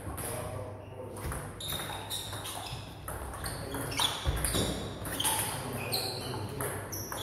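Table tennis ball in play: a string of sharp clicks as the ball strikes the bats and the table.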